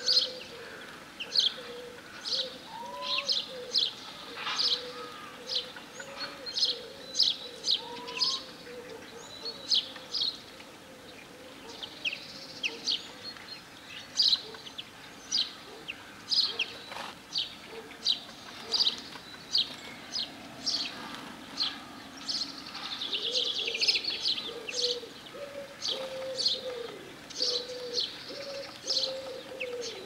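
Small songbirds chirping, sharp short calls repeated about two or three times a second, with a low, wavering cooing underneath for the first ten seconds or so and again in the last quarter.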